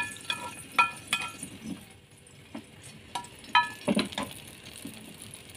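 Metal spoon scraping and tapping against a frying pan while fried shallots and garlic are emptied into a soup pot: several sharp ringing clinks with quieter scrapes between, and a duller knock about four seconds in.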